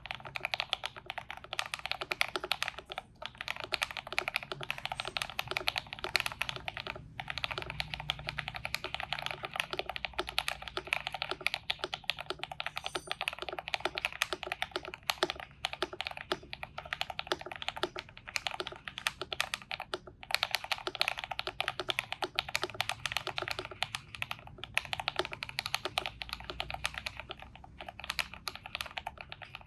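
Feker IK75 mechanical keyboard with lubed Akko Vintage White switches and a PE foam mod being typed on steadily, a dense run of fast keystrokes broken by a few brief pauses.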